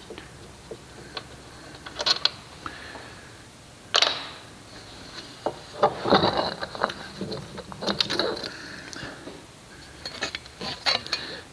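Irregular metallic clinks and clanks of tools and parts being handled while a front wheel hub assembly is fitted, with one sharp clank about four seconds in and a busier stretch of knocks around the middle.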